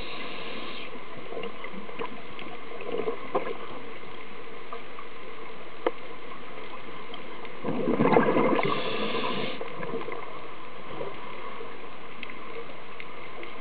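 Underwater sound from a diver's camera: a steady hiss, and about eight seconds in one louder gurgling rush of bubbles lasting about two seconds, typical of a scuba diver's regulator exhaust on an exhale.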